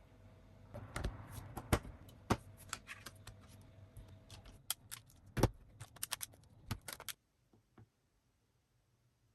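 Irregular sharp clicks and knocks of objects being handled on a hard surface, a couple of dozen in quick succession, stopping about seven seconds in.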